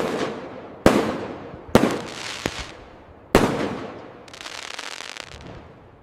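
Fireworks display: a run of sharp firework bangs about a second apart, each trailing off in a fading rumble, followed near the end by a stretch of crackle that dies away.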